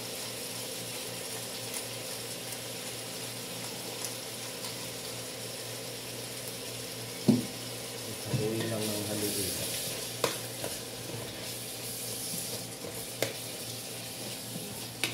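Chicken pieces sizzling as they fry in a large aluminium pot, with a metal spoon stirring them and knocking sharply against the pot a few times.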